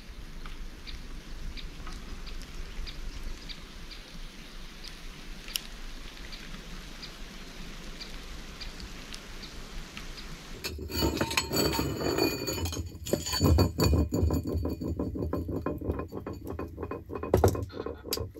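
Light rain in a forest: a soft steady hiss with scattered drops ticking on leaves. About ten seconds in it gives way to a louder run of close clattering and rustling.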